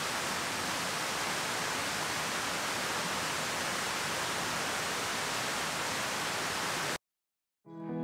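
Steady, even hiss-like rushing noise with no pitch, holding level and then cutting off abruptly about seven seconds in, followed by a brief silence.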